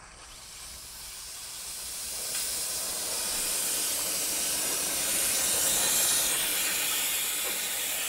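Steam wand of a Hamilton Beach 40729 espresso maker venting steam with a steady hiss that builds over the first two or three seconds and then holds. It is a pretty decent amount of steam: the steamer is working well after descaling.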